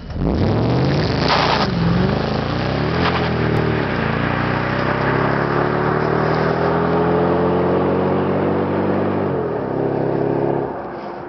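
Mercedes SL55 AMG's supercharged V8 accelerating hard: the engine note climbs, drops twice in quick shifts in the first few seconds, then pulls up steadily for a long stretch before dropping again and fading near the end.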